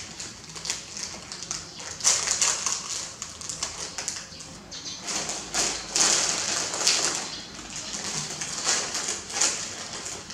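Plastic snack wrappers crinkling and rustling as they are handled and torn open, in short irregular crackly bursts.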